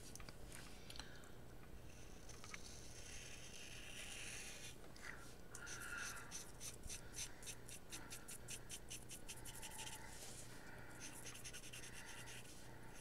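Paint marker nib drawing on wax paper with a faint scratching. Around the middle it makes a run of quick short strokes, about five a second.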